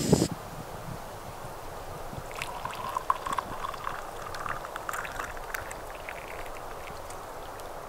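Water poured from a small camping kettle into a collapsible cup: a splashing trickle starting a couple of seconds in and lasting about four seconds. A short low thump comes right at the start.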